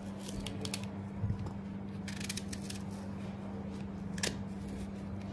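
Knife slicing through a peeled raw green mango in short, crisp cuts, in a few clusters with one sharper cut near the end, over a steady low hum.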